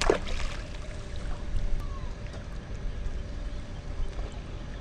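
River water sloshing around a microphone held just above the surface, with a steady low rumble. A short sudden sound that falls in pitch comes right at the start.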